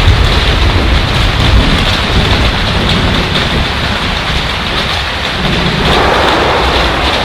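Hail and heavy rain hitting a flat roof overhead: a loud, dense, steady din that the flat roof amplifies, with a low thunder rumble underneath that eases off about halfway through. Near the end the din grows brighter and louder.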